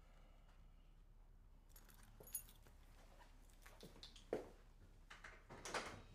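Near silence: quiet room tone with a few soft knocks and rustles of a person moving about and handling things, the loudest two in the second half.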